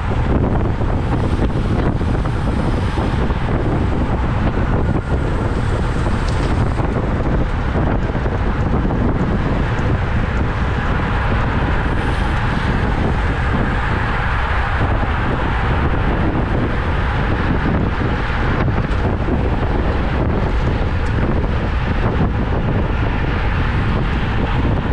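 Loud, steady wind noise buffeting the microphone, from a bicycle moving at racing speed.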